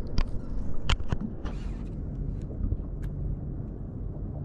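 Steady low wind and water noise around a small fishing boat at sea, with a few sharp clicks and taps in the first second, a short hiss about a second and a half in, and one more click about three seconds in.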